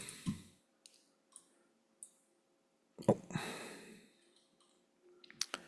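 Scattered computer mouse clicks, a few single clicks and then a quick cluster near the end, as parts are placed in a circuit simulator. About three seconds in there is a brief rush of noise that fades out over about a second.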